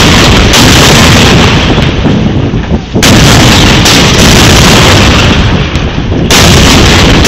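Black-powder cannons firing blanks in quick succession: about four sudden heavy bangs, each followed by a long loud rumble. The bangs are loud enough to overload the phone's recording.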